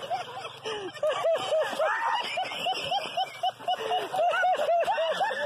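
A person laughing hard in a long, quick run of rising-and-falling "ha"s, about three or four a second.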